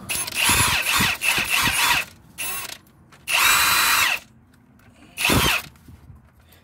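Cordless impact wrench hammering on a bolt at the front of the engine by the timing belt, loosening it. It runs in four bursts: a long run of about two seconds, a short blip, about a second more, then another short blip.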